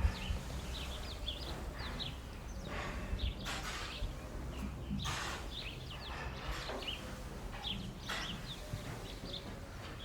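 Barn ambience with small birds chirping and twittering over a steady low rumble, broken by a few brief noises about three, five and eight seconds in.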